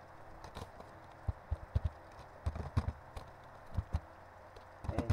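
Computer keyboard typing: about a dozen separate keystrokes at an irregular pace, with pauses of up to about a second between groups of keys.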